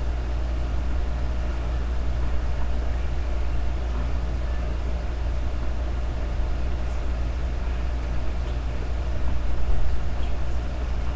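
A steady low hum with a hiss over it, unchanging in character throughout, swelling slightly in loudness near the end.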